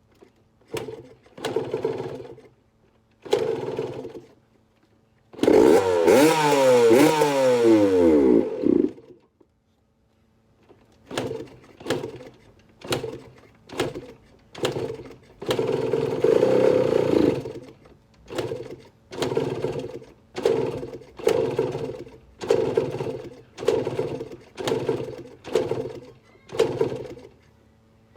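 A 2006 Yamaha YZ125 two-stroke single being kick-started cold after a full engine rebuild, with the choke not pulled. After a few kicks it fires and runs loudly for about three and a half seconds, the revs rising and falling, then dies. After a short pause comes a long run of kicks about one a second, with a longer burst in the middle where it briefly catches.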